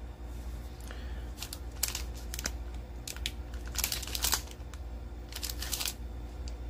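Plastic wrapper of a sealed 2024 Panini Prizm WWE trading card pack crinkling in a series of short, irregular rustles as it is handled and turned over in the hands.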